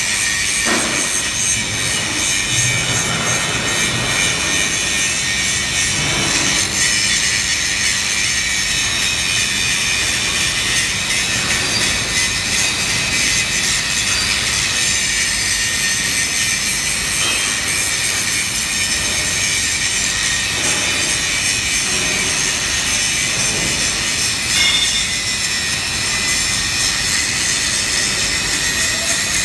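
Handheld angle grinder with an abrasive disc grinding a cast metal part: a loud, steady, high-pitched grinding screech as the disc is held against the metal.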